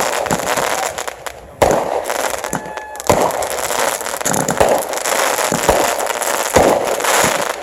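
Fireworks going off in quick succession: sharp bangs with dense crackling between them, and especially loud bangs about a second and a half and three seconds in.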